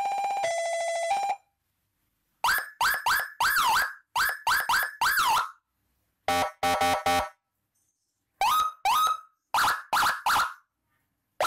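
Landun Whelen-style six-tone siren module sounding through its speaker and being stepped through its tones. A two-tone hi-lo alternation cuts off about a second in. Then come several short bursts of quick chirping yelps and one rapid pulsed tone, with pauses between.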